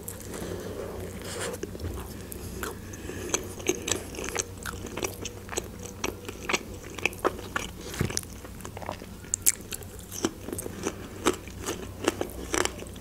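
Close-up biting and chewing of pide, a Turkish flatbread with a minced-meat topping: an irregular run of small crisp crunches and wet mouth clicks.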